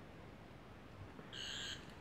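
One faint, short high-pitched electronic tone, about half a second long, from a toy Twelfth Doctor sonic screwdriver pressed at its top button, about one and a half seconds in. The toy's speaker is failing, so its sound effect comes out only weakly.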